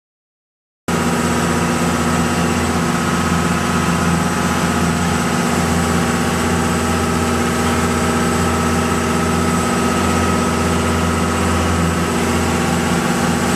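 Shrimp boat's engine running steadily on deck, a loud constant drone with a thin steady whine over it, starting abruptly about a second in.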